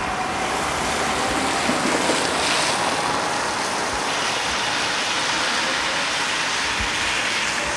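Freight train cars rolling past: a steady rushing rumble of steel wheels on rail, with a few low thumps.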